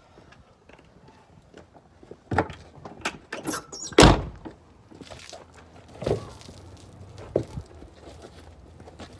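A series of sharp knocks and thumps, the loudest about four seconds in, from a long-handled wash brush and other washing gear being handled close by.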